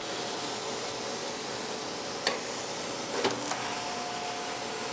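Landis surface grinder wheel cutting across the steel gib on a light pass taken about a thousandth deep, a steady high hiss that starts abruptly as the wheel bites. Two short clicks sound partway through.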